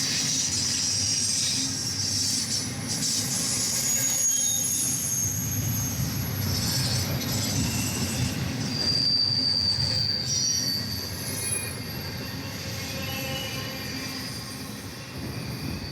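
BNSF intermodal container freight train rolling past: a steady rumble of cars on the rails, with high-pitched wheel squeal coming and going, strongest about nine seconds in. The rumble eases slightly near the end.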